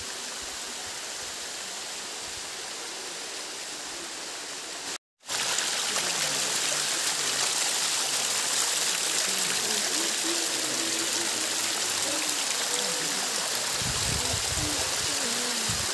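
Small waterfall: water pouring and splashing down rock ledges in a steady rush. The sound cuts out for a moment about five seconds in and comes back louder, closer to the falling water, with a brief low rumble near the end.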